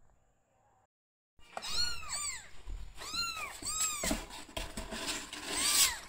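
Kittens mewing: about five high-pitched mews, each rising then falling in pitch, beginning about a second and a half in, over scuffling in a cardboard box.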